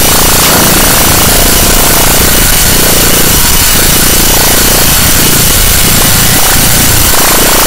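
Harsh noise music: a loud, unbroken wall of distorted noise filling the whole range from deep bass to high hiss, its rough texture shifting in the middle range while the overall level stays constant.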